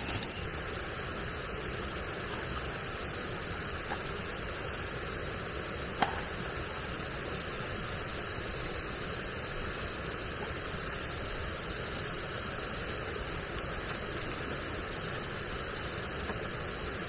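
Steady rush of flowing water, with a single sharp click about six seconds in.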